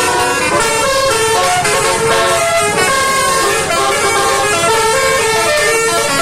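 Basuri (telolet) multi-tone vehicle horns playing a melody, several tones at once with the notes changing every fraction of a second.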